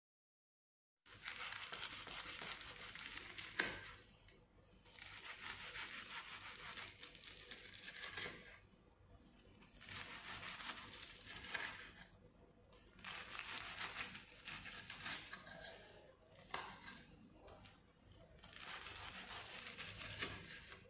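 Kitchen knife sawing through a freshly fried panko-crusted chicken katsu cutlet, the crisp breadcrumb coating crunching and crackling. The sound comes in several stretches of two to three seconds, one for each slice, with short pauses between, after a second of silence at the start.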